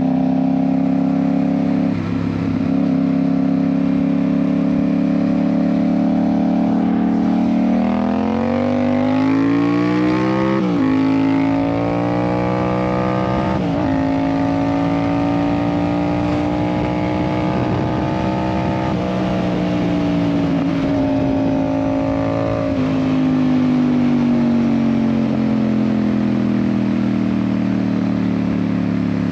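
Yamaha MT-07's parallel-twin engine through an aftermarket IXIL exhaust, riding along at steady revs, then accelerating through two quick upshifts about a third of the way in. It holds steady revs again, and the revs fall slowly as the bike slows near the end.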